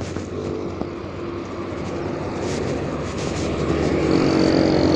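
Motorcycle engine passing on the road, growing louder toward the end, with a thin high whine as it draws level. A few short knocks and rattles are heard through it.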